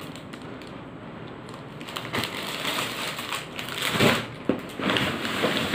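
Clear plastic packaging on a new shirt crinkling and rustling as the wrapped clothes are handled and set down. It comes in uneven bursts starting about two seconds in.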